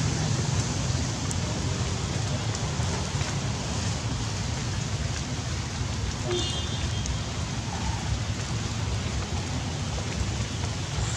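Heavy rain falling steadily, an even hiss with no break, and a brief high chirp about six seconds in.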